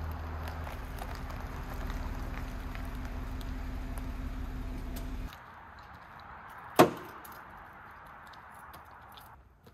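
Jeep Wrangler engine running steadily, then switched off and cutting out abruptly about five seconds in; a second or so later comes a single sharp knock, the loudest sound here.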